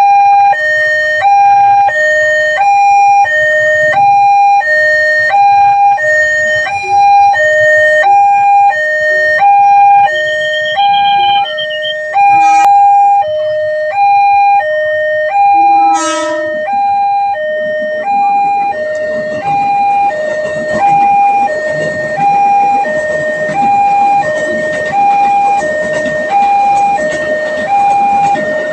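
Railway level-crossing warning alarm sounding a steady two-tone electronic hi-lo signal, the two pitches alternating about every two-thirds of a second. From about two-thirds of the way in, a broad rushing noise builds up beneath it.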